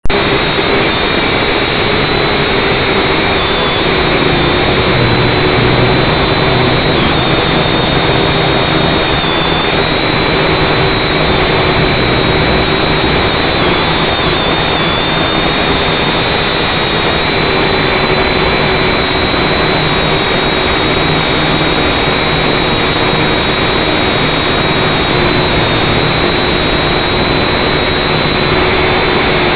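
FPV drone's electric motors and propellers running steadily in flight, heard through its onboard camera's microphone as a constant whine over a dense hiss.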